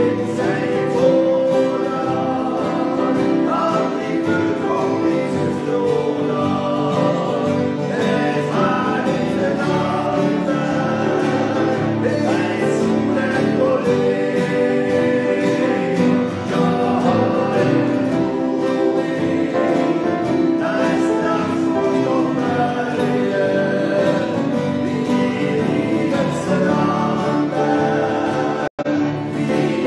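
Two men singing a Norwegian gospel hymn together, accompanied by two acoustic guitars. The sound cuts out for a split second near the end.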